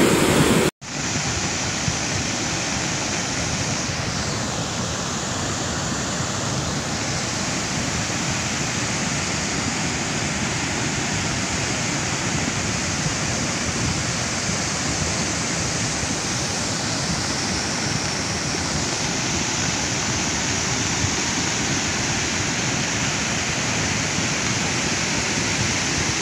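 Cold lahar flood of water and volcanic debris rushing down the river channel: a steady, unbroken rush that starts just under a second in.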